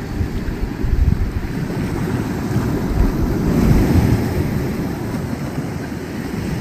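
Wind rumbling on the microphone over the wash of sea waves, swelling about a second in and again around three to four seconds in.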